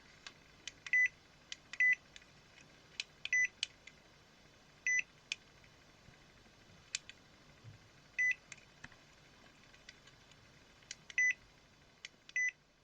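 Short, high electronic beeps from a mini multimeter's buzzer, about seven in all at uneven intervals, with small clicks in between like buttons being pressed.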